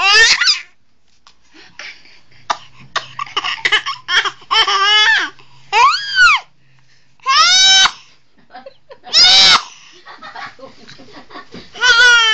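A small child laughing hard, in choppy short bursts broken by several long high-pitched calls that rise and fall, the laughter setting off coughing.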